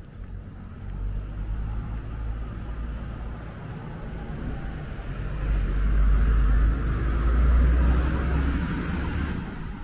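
Road traffic passing on a city street: vehicle engine rumble and tyre noise swelling about halfway through and fading near the end.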